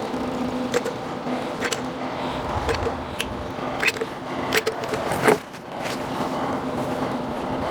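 Plastic trowel scraping and smoothing liquid flashing over a window opening, with short sharp scrapes and clicks and one louder knock about five seconds in, over a steady hum.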